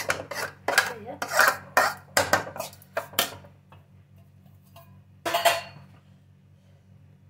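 Steel spoon scraping and clinking against a steel kadhai while stirring dry roasted semolina, a quick run of strokes for about three seconds, then one more clank about five seconds in.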